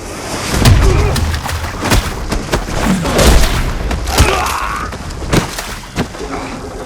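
Dubbed fight sound effects: a fast series of punch and body-hit impacts with heavy thuds, the biggest about a second in and around three seconds in, with short grunts of effort among them.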